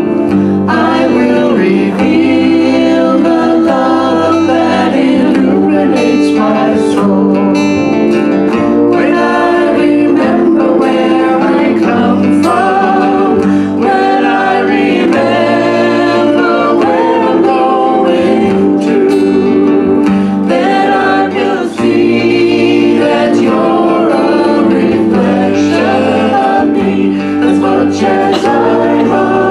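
A small live band playing a song: a woman sings lead over strummed acoustic guitar, with bass and drums.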